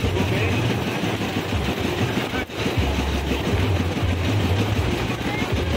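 Beaten egg frying in a wok of hot oil for telur gulung, sizzling and crackling as it is stirred with a bamboo skewer. A low engine hum runs underneath, coming and going.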